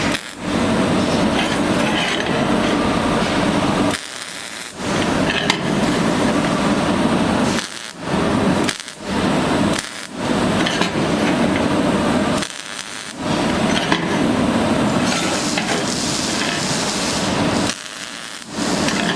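MIG (semi-automatic) welding arc crackling and buzzing in runs of a few seconds, stopping abruptly several times between welds.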